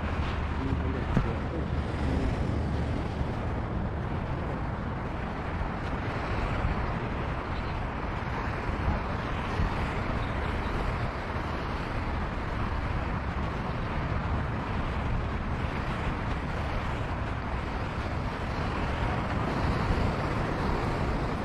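Wind blowing across the microphone with ocean surf washing in the background: a steady noise with no pauses.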